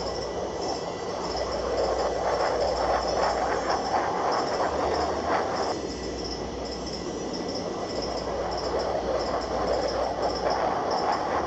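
F-16 fighter jets taking off, jet engine roar swelling as one passes. It drops at about six seconds and swells again as the next one comes by.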